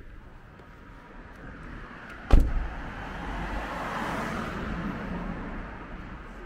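A car door slams shut with a single heavy thud about two seconds in. A rushing street noise then swells and fades over the next few seconds.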